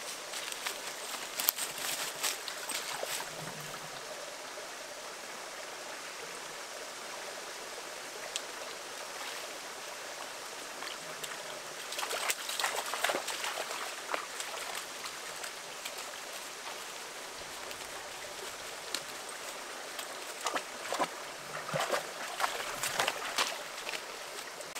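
Steady rush of a running forest stream. Clusters of crackling footsteps on leaves and twigs come a couple of seconds in, around the middle, and again near the end.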